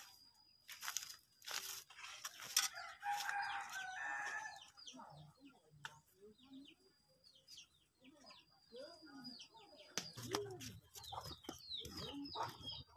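Chickens clucking, with many short high chirps scattered throughout and one longer arching call about ten seconds in. There are a few seconds of scuffing and rustling near the start.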